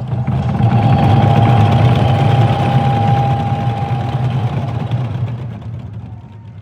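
Korean nanta drums played in a fast continuous roll: a dense low rumble that swells, holds, then fades away over the last second or two. A steady ringing tone sounds above it for a few seconds.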